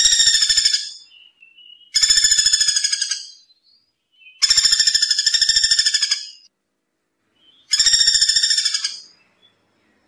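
Common flameback woodpecker (pelatuk bawang) giving its rapid, trilling rattle call. One rattle ends just after the start, then three more follow, each about a second and a half long with about a second of silence between them.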